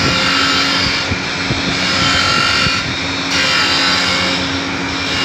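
Grinding machine running, its grinding wheel working a small metal part: a steady hum under a high grinding hiss that swells and fades in a regular cycle about every two seconds as the part is fed back and forth against the wheel.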